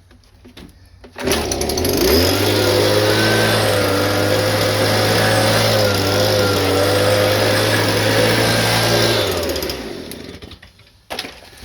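A handheld blower starts about a second in and spins up quickly. It runs at a steady pitch for about eight seconds, blowing leaf dust out of the mower's air-filter housing, then winds down near the end.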